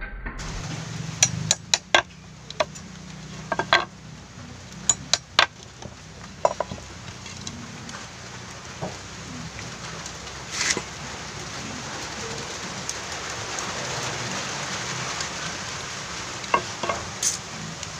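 Irregular knocks and clatters of wooden boards and a hammer being handled on a tree stump, over a steady hiss.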